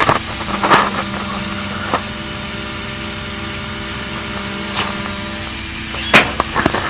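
Maytag top-load washer running with a steady mechanical hum, broken by a few short clicks and knocks, the sharpest about six seconds in.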